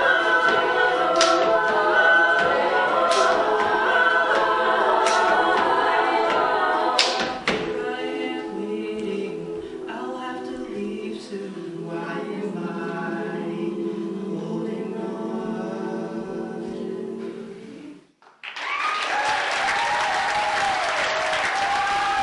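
Mixed-voice a cappella group singing full chords with sharp vocal-percussion hits about every two seconds, then softening into held chords that fade out about 18 seconds in. A short gap follows, then the audience applauds and cheers.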